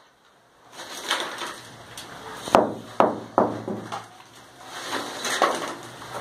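Hand hammer striking into a plastered brick wall, chipping out a channel for electrical wiring. Four sharp strikes come about half a second apart near the middle, with softer knocks and scraping before and after.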